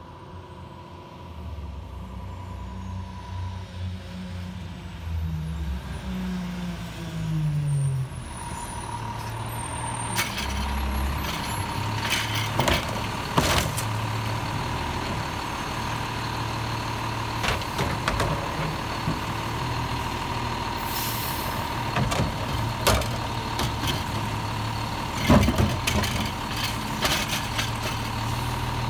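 Autocar automated side-loader garbage truck pulling up and running its engine at raised revs while its hydraulic arm grabs, lifts and dumps curbside carts, with a steady whine. Several sharp bangs come as the carts are shaken out into the hopper, and air brakes hiss.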